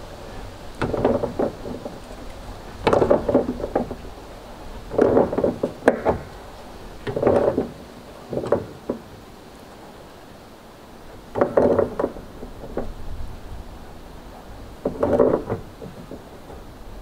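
Wrench turning the bulkhead fitting's nut against the wall of a hollow 55-gallon plastic drum. It turns in about seven separate strokes a couple of seconds apart, each a short rubbing, knocking burst of half a second to a second.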